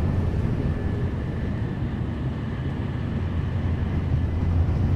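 N700A Shinkansen running at speed, heard from inside the passenger car: a steady low rumble of wheels on rail with air rushing past the car body.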